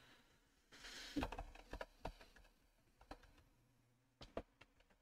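Faint, irregular keystrokes on a computer keyboard as a search term is typed, with a short hiss about a second in.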